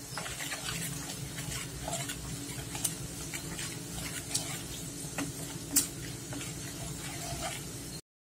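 Wooden spatula stirring chicken pickle in spiced oil in a wok, the oil bubbling and sizzling, with a few sharp knocks of the spatula against the pan. The sound cuts off abruptly near the end.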